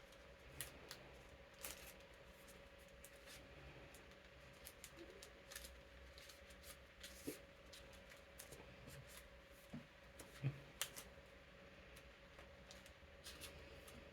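Playing cards being slid into plastic card sleeves: scattered faint clicks and crinkles, with a sharper pair of taps about ten and a half seconds in. The steady hum of an electric fan runs underneath.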